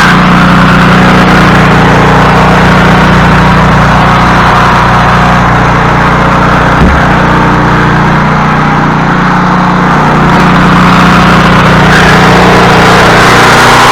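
Snow thrower's small gasoline engine running steadily at a constant speed, with a brief knock about seven seconds in.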